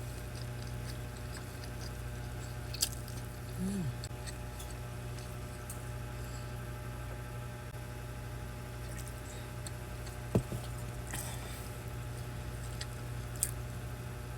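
Close-up chewing and eating sounds of a meal of rice, stewed beef and boiled egg, with a few sharp clicks, over a steady low hum.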